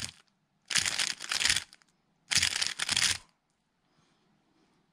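MoYu RS3M 2020 magnetic 3x3 speedcube turned at high speed through an E-perm algorithm, over and over. A burst of rapid turning clicks ends just as the sound begins, then two more bursts of about a second each follow, about half a second apart. Each burst is one run of the algorithm.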